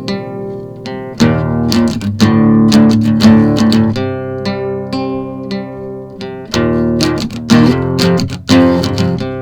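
Acoustic guitar music: picked notes, with louder strummed chords coming in about a second in and again in the second half.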